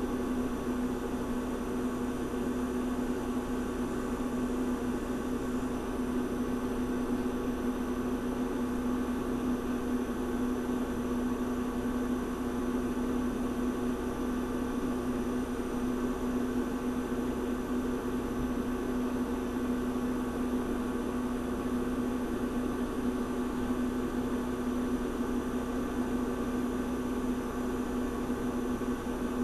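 Refrigerator compressor running: a steady, unchanging hum with a strong low tone and a light hiss behind it.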